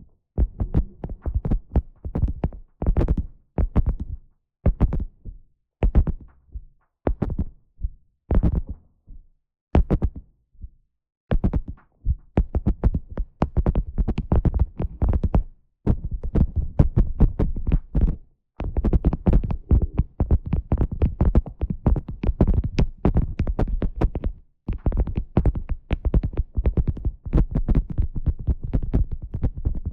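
Beeswax food wrap crinkled and crumpled close to the microphone, a dense crackling. For the first ten seconds or so it comes in short bursts with pauses between them, then it runs on in longer, nearly unbroken stretches.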